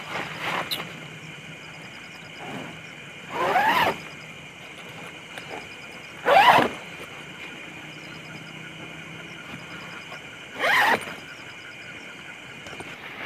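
Three short, loud swishing sounds, about three to four seconds apart, over a steady high trilling with a pulsing chirp in it, typical of night insects in forest.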